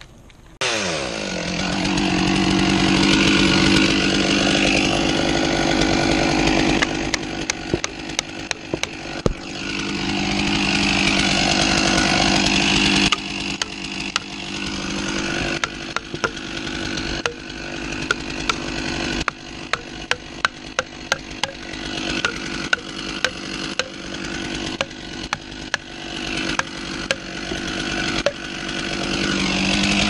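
Chainsaw starting up about half a second in and running at high revs, cutting into the base of a silver maple trunk, its pace dipping now and then. From about seven seconds on, many sharp knocks at irregular spacing sound over the saw.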